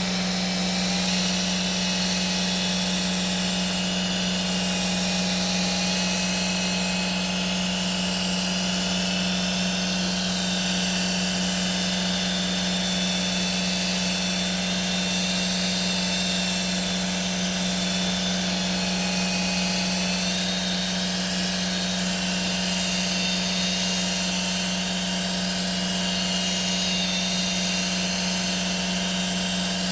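Handheld power tool running steadily, with a constant low hum and a high whine that drifts slightly in pitch.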